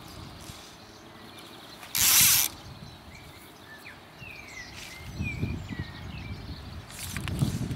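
Fly reel's click-pawl ratchet buzzing for about half a second as line is pulled off, about two seconds in. Small birds chirp faintly, and low rumbling handling noise starts in the last few seconds.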